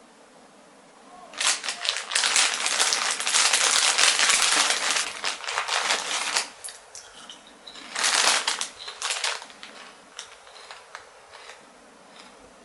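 Close rustling, crackling noise full of sharp clicks. It starts about a second in and lasts about five seconds, comes back in a shorter bout about eight seconds in, then thins out to scattered faint clicks.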